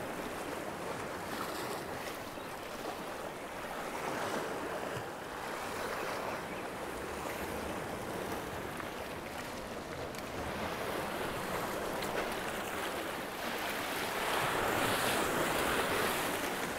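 Sea swell surging and washing around shoreline rocks, a steady rushing wash that grows louder with a bigger surge near the end.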